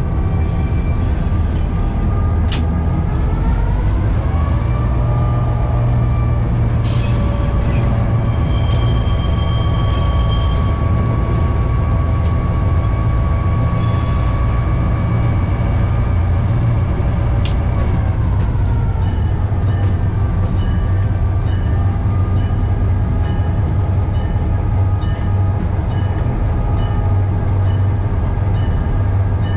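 The 16-cylinder EMD 567 diesel prime mover of an F7 locomotive running, heard from inside the cab. Its engine speed rises about four seconds in, holds steady, then drops back around eighteen seconds as the throttle comes down. Several brief high squeals come and go in the first half.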